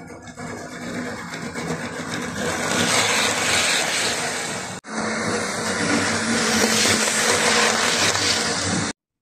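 Model train passing close by, its electric motor whirring and wheels running on the track, growing louder as it nears. There is a brief break about halfway, and the sound cuts off suddenly near the end.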